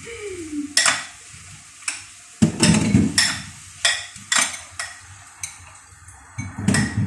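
Dishes and utensils clinking and knocking as they are handled and washed in a kitchen sink. There are sharp clinks about once a second, with a short rattling clatter around two and a half seconds in and again near the end.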